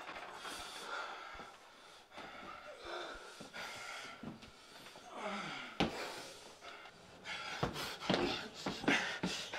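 A man panting and gasping heavily for breath, with a sharp knock about six seconds in.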